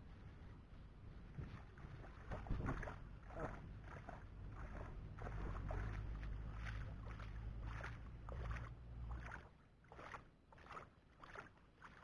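Water splashing and sloshing in a steady rhythm, about two splashes a second, with a low rumble through the middle.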